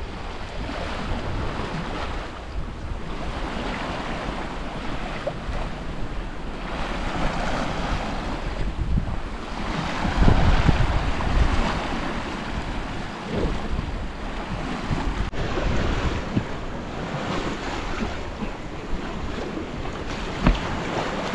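Sea water rushing and splashing along the hull of a sailboat under sail. Wind buffets the microphone in gusts, strongest about ten seconds in.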